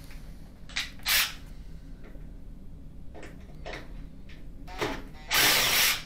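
Power screwdriver run in several short bursts, then a longer burst of about half a second near the end, backing out the Phillips screws that hold a washer's display panel.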